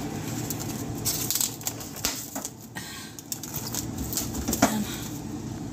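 Plastic cling wrap crinkling and rustling as it is pulled off the roll and stretched over a cooking pot, with scattered small clicks and taps.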